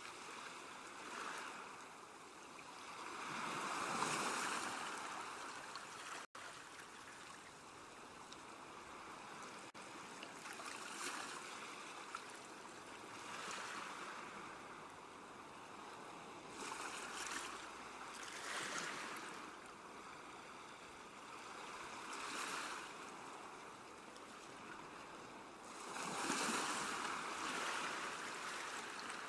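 Gentle ocean waves washing in and drawing back, the rush swelling and fading every few seconds, louder about four seconds in and again near the end.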